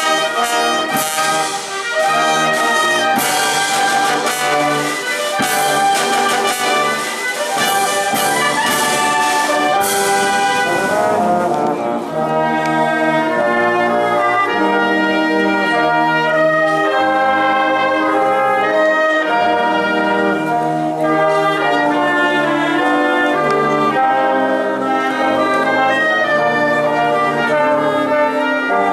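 A town wind band of trumpets, trombones, euphonium, sousaphone and clarinets playing a tune together. Steady percussion beats run under the winds for about the first eleven seconds, then stop while the winds play on.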